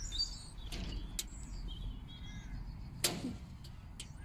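Birds calling and chirping faintly in the background, with a few short sharp clicks as wire glazing clips are pushed into a metal greenhouse glazing bar; the sharpest click comes about three seconds in.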